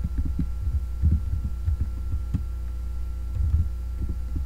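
Computer keyboard keystrokes picked up as irregular, muffled low thuds, about a dozen, over a steady low hum.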